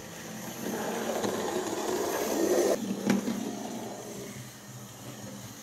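Model railway locomotive running along the track, a steady motor-and-wheel rumble that grows louder and then cuts off abruptly about three seconds in. A single sharp knock follows just after.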